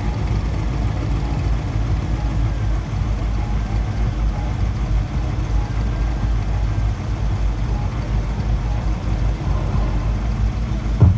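Car engine idling with a deep, steady exhaust rumble. There is one short louder blip near the end.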